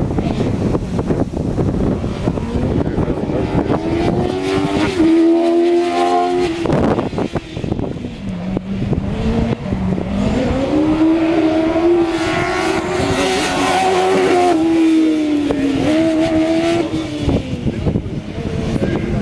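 OMS 200M single-seater racing car's engine revving hard through a sprint run. Its pitch climbs and falls several times, with a sharp drop about seven seconds in as it comes off the throttle, then it climbs back and holds high.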